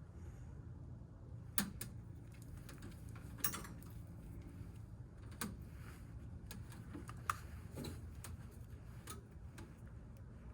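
A few sharp clicks and knocks of hand work with tools and parts, about five spread over ten seconds, over a steady low hum.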